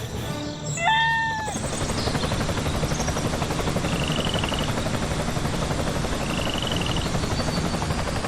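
Small electric motors of a DIY model tractor running with a steady whir. About a second in there is a brief pitched call, and two short high chirps come later.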